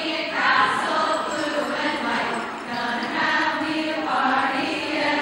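A group of voices singing together in a chant-like song.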